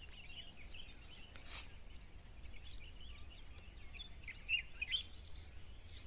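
Small birds chirping faintly and continuously, with two slightly louder chirps near the end, over a steady low rumble.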